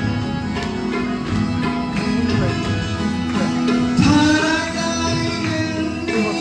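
Background music with sustained instrumental tones; a sliding melodic line comes in about four seconds in.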